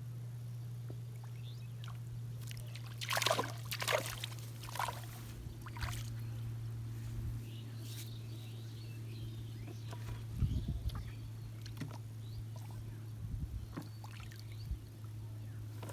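Water splashing and sloshing, a cluster of splashes about three to five seconds in and more scattered ones later, over a steady low hum.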